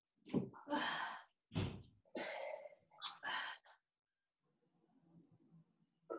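A man's heavy, sighing breaths: about six short breaths in and out in quick succession over the first four seconds, then quiet. He is breathing through the discomfort of a mobility ball pressed into the muscle beside his spine.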